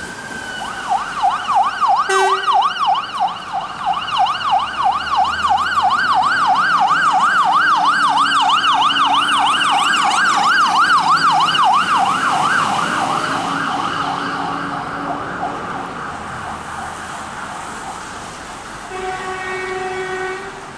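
Fire engine's electronic siren responding to a call-out. A rising wail switches to a fast yelp of about three cycles a second, growing louder and then fading away. A short horn blast comes about two seconds in, and a longer steady horn blast near the end.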